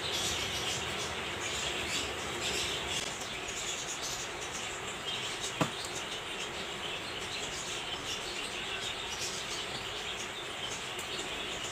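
Steady background hiss with no clear source, and a single short click about five and a half seconds in.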